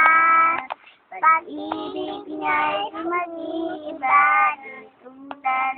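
A girl singing a song solo and unaccompanied, in held sung phrases with short breaks between them.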